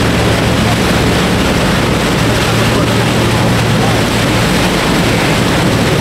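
An engine running steadily, a low drone under a loud, even rushing noise.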